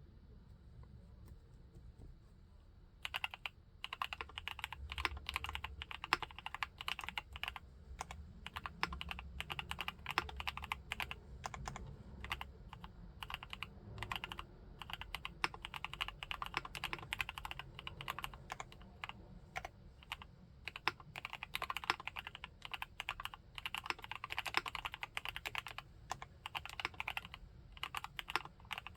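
Typing on a TACWORKS TAC T2 mechanical keyboard with Gateron Yellow linear switches: a fast, continuous run of keystrokes that starts about three seconds in.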